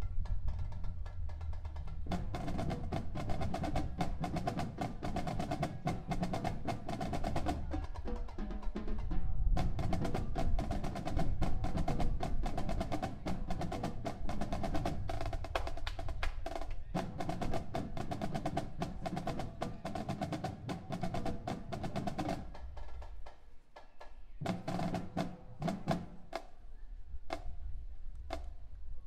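High school marching band playing, with dense snare and drum strokes under sustained brass and woodwind chords. Near the end the winds drop out and the drumming thins to sparser hits.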